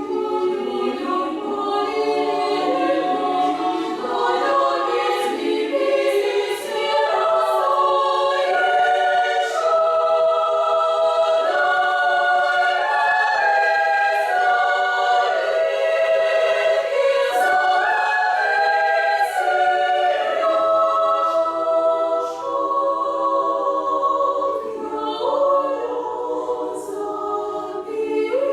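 Women's choir singing a cappella, several voice parts holding sustained chords that shift together.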